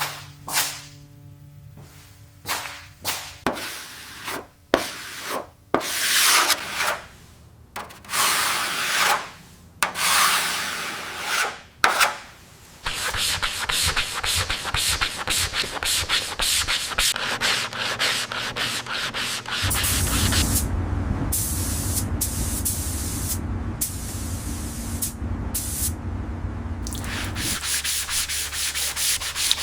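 Sanding on car bodywork: separate rasping strokes for roughly the first dozen seconds, then continuous sanding, with a steady motor hum joining in about two-thirds of the way through and stopping shortly before the end.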